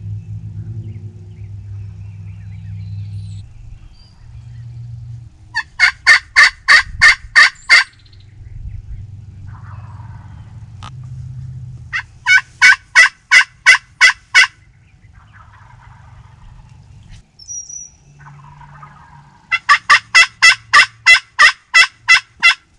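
Turkey yelping: three loud series of about eight to ten evenly spaced notes, roughly four to five a second, over a low steady rumble.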